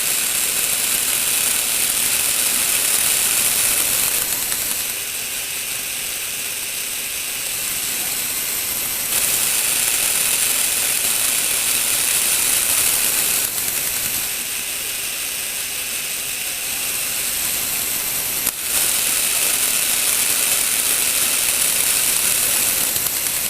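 Lego Technic plastic gear mechanism running with a steady motor-driven whirr. The whirr steps between louder and quieter stretches every four to five seconds as the gearbox changes gear, with a sharp click at one of the changes near the end.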